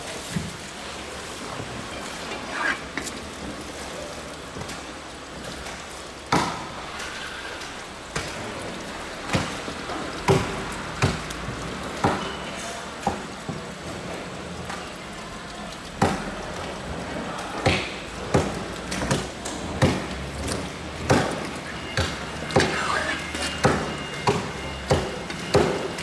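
Irregular knocks and slaps of a knife and mahi-mahi fillets on a plastic cutting board during filleting and skinning. They come thicker, about one or two a second, from about ten seconds in.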